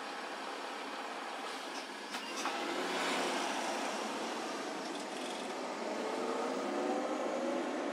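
City street traffic heard from a moving car: steady road and engine noise, with a couple of sharp clicks about two seconds in and a vehicle's engine rising in pitch as it speeds up over the last few seconds.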